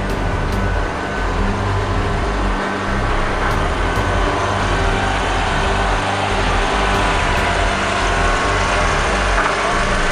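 Heavy-haul truck running with a steady low engine rumble as its multi-axle trailer rolls past.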